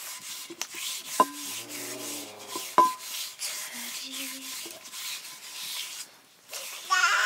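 Rhythmic rubbing or scraping strokes, about three a second, with two sharp knocks a little over a second apart; the strokes stop near the end.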